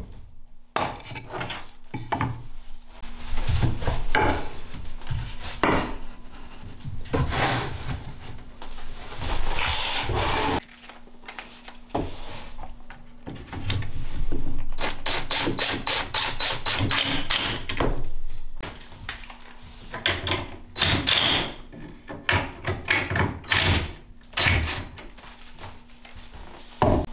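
Woodworking on a bench: pine boards handled, rubbed and knocked together, with short runs of a DeWalt cordless drill-driver sending screws into pocket holes. A faint steady hum sits underneath.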